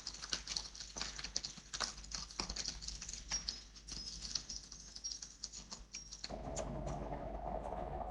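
Raindrops pattering in quick, irregular ticks over a light hiss of rain. A steadier, fuller sound joins about six seconds in.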